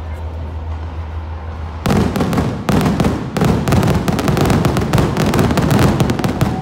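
Fireworks display. A steady low hum runs for about two seconds, then a dense, loud barrage of rapid bangs and crackling begins and keeps going as the aerial shells burst.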